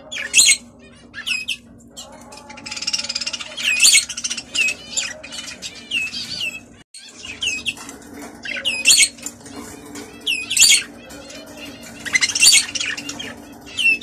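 Budgerigars chirping and chattering: a string of short, sharp calls every half-second to a second, with two longer warbling stretches, one a couple of seconds in and one near the end.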